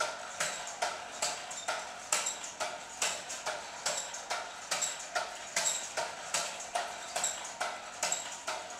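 Homemade air-powered RC car's syringe-piston engine with slider valves running on compressed air, giving a regular clacking pulse of about two or three beats a second.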